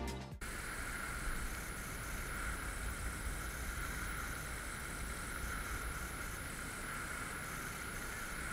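A steady, even rushing hiss of water from a tall jet fountain in a lake, heard from a distance. Background music cuts off in the first half-second.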